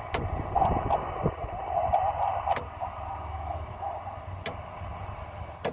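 Band noise from an Icom IC-705's speaker, heard while a manual antenna tuner is turned to find the most noise, the sign of being near a match. The hiss is strongest in the first few seconds and fades after about three seconds as it goes off tune. Four sharp clicks sound over a low rumble of wind and road noise.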